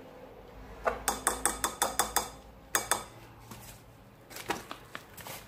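A spoon knocking against a glass mixing bowl while stirring: a quick run of about nine sharp clicks, two more a moment later, then softer scattered clicks near the end.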